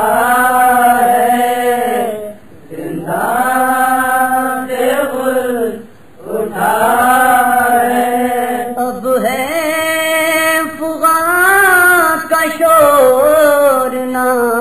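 Male voice chanting a noha, an Urdu Shia lament, in sung phrases of two to three seconds with short breaks between them. About nine seconds in, the melody moves higher in a longer phrase.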